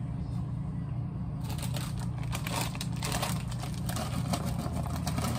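Plastic snack bag of Flamin' Hot Cheetos crinkling, starting about a second and a half in, over a steady low hum.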